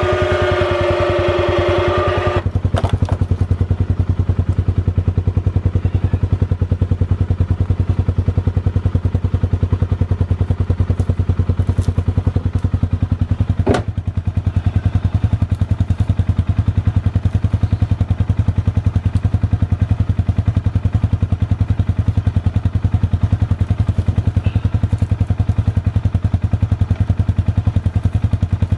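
Side-by-side utility vehicle's engine idling steadily. An electric winch whines for the first couple of seconds and stops abruptly. A single sharp thump comes about 14 seconds in.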